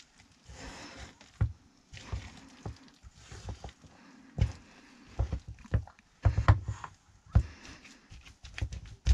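Wooden spoon stirring a thick, wet damper dough of flour, butter and hot water in a bowl: irregular squelching scrapes with knocks of the spoon against the bowl.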